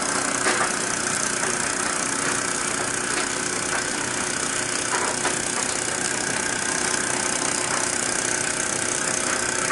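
Miniature Microcosm live steam engine running steadily while driving a small generator, a constant hiss with faint light ticking. The engine is new and being run in, freshly oiled.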